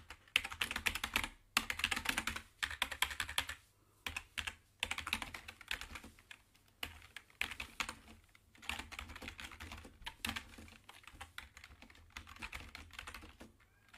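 Computer keyboard typing sound effect: quick runs of key clicks in short bursts, separated by brief pauses, growing fainter in the second half.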